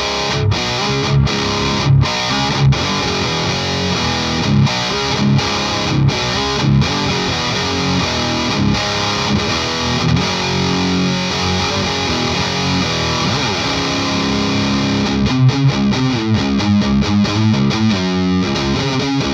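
Overdriven electric guitar played through a Dagon OD, a Klon-style overdrive pedal, into a Marshall JCM900 amp. In the first few seconds it plays a riff with short, sharp stops. It then holds notes, with a slide down in pitch, and near the end plays fast chugging with quick stops.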